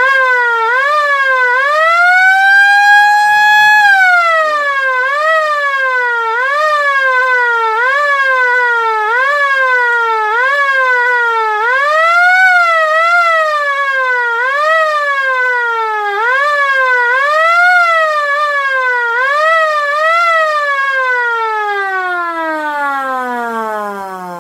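LK-JDW105 electric motor air raid siren sounding loud. It winds up to a high wail for the first few seconds, then its pitch swings sharply up and down about once a second. Near the end it winds down in one long falling glide.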